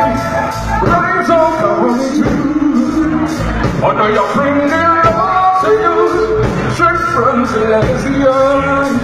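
Live concert music with a singer's voice over the band, loud and continuous.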